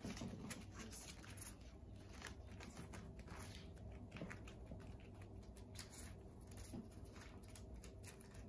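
Faint, irregular light rustling and small clicks of a hedgehog moving across absorbent pee pads and a plastic liner.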